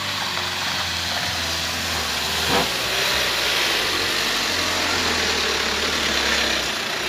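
Isuzu Traga light truck's diesel engine running as the truck drives past close by, with tyre hiss on the rough gravel road growing louder as it passes. A single sharp knock comes about two and a half seconds in.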